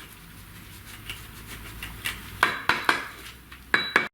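Sharp clinks and knocks of hard objects, in two quick groups of three or four strikes each, some with a brief metallic ring, over a low background hum; the sound cuts off abruptly near the end.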